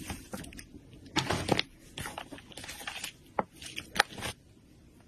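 Slime being squeezed and worked by hand, with irregular bursts of crackling and popping and a few sharp clicks that stop about four seconds in.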